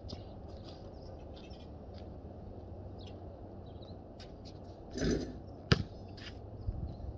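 Steady low outdoor background rumble with faint high chirps. About five seconds in comes a short rush of noise, then a single sharp knock of a basketball bouncing on the concrete court.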